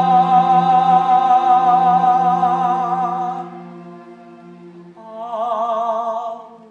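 A male singer holds a long note with vibrato over a musical-theatre accompaniment, dying away about three and a half seconds in. A second, quieter held note with vibrato follows about five seconds in.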